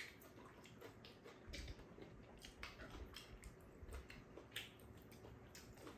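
Near silence with faint eating sounds: a few soft clicks of chopsticks and a spoon against bowls, and quiet chewing.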